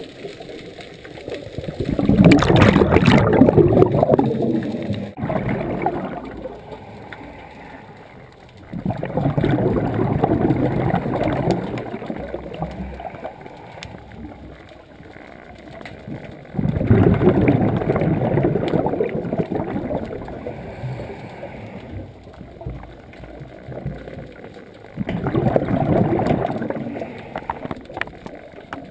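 Scuba diver's exhaled bubbles gurgling out of the regulator, heard underwater: four bursts of about three seconds each, one every seven or eight seconds, with quieter stretches between breaths.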